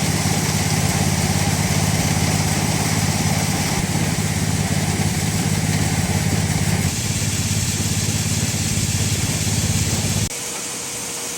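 Steady drone of the motor running the grain auger that loads the dryer from a corn wagon. It stops abruptly about ten seconds in, leaving a quieter hum with a faint steady tone.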